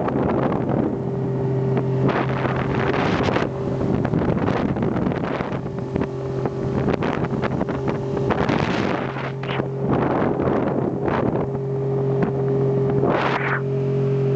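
Honda BF30 four-stroke outboard motor running at a steady speed under way while being run in, its steady drone heard through heavy gusts of wind on the microphone.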